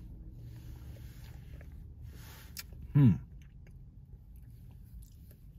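Mouth sounds of someone drinking an iced shaken espresso: soft sipping noises, then a short hum that drops in pitch about three seconds in, the loudest moment.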